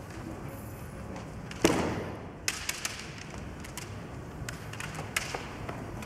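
Kendo bout getting under way in a hall with a wooden floor: one loud sharp thud with a short ring about a second and a half in, then a few lighter scattered taps and clacks from bamboo shinai and feet on the floorboards.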